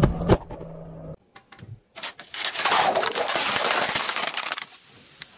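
A car tyre rolling over plastic drink pouches, with two sharp pops over a low engine hum in the first second. After a break, a tyre crushes a slab of ice and plastic cups in a long, dense crackling crunch lasting about two and a half seconds.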